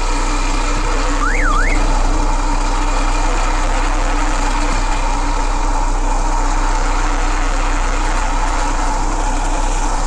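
Engine running steadily with a constant hum, joined briefly about a second and a half in by a short zigzag chirp that rises and falls in pitch.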